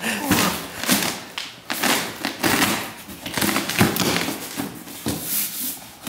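A cardboard parcel box set down on a hard floor with a thump, then hands scratching, tapping and rustling at the cardboard and its packing tape as it is picked open.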